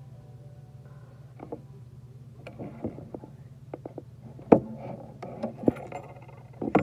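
Scattered sharp clicks and knocks of a Shimano SLX 150HG baitcasting reel being handled and turned over close to the microphone, starting about two and a half seconds in, the sharpest around four and a half seconds. A steady low hum runs underneath.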